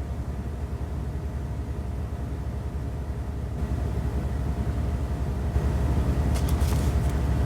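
A steady low rumble with a faint hum over it, growing slightly louder about halfway through, with a few faint ticks near the end.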